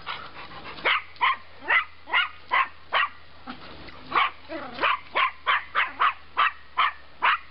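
A dog barking over and over in quick, sharp barks, about two a second, at soap bubbles being blown for it.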